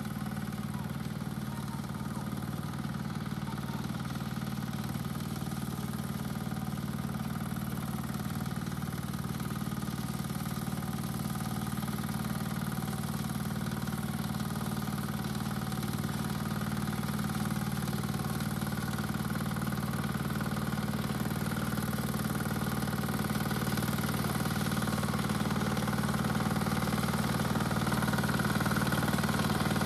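BCS 853 walk-behind tractor's diesel engine running steadily at about one-third throttle, driving a 71-inch dual-action (duplex) sickle bar mower through hay. The sound grows gradually louder as the machine comes closer.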